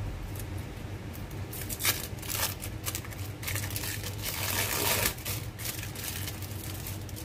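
Thin plastic wrapper of a processed cheese slice crinkling as it is peeled off by hand: a run of crackles starting about a second and a half in, loudest just before they stop at about five seconds.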